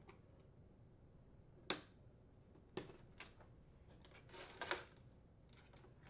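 Sharp plastic clicks and snaps as a small flathead screwdriver pries back the retaining tabs and pops a reed switch out of a refrigerator's plastic hinge cover. There is a loud snap about two seconds in, a second click about a second later, and a short run of clicks and rattling near the end.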